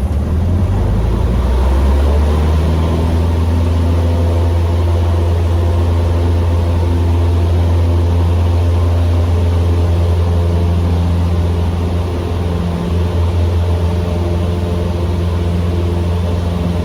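Cessna 150M Aerobat's Continental O-200 four-cylinder engine heard inside the cabin, a steady low drone that grows a little louder about two seconds in.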